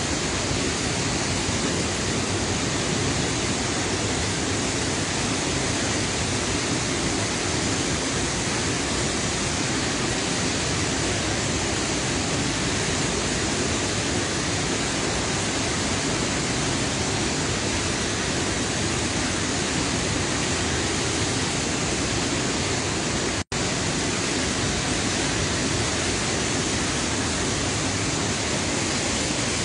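Floodwater from a full, overflowing dam pouring over its spillway in a steady, heavy rush. The sound cuts out for an instant about 23 seconds in.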